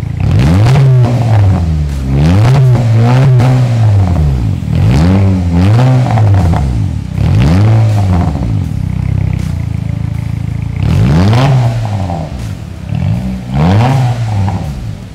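Honda City's i-VTEC petrol engine free-revved through a Remus valvetronic cat-back exhaust with the resonator deleted, its pitch rising and falling back in a string of quick blips, about six or seven in all.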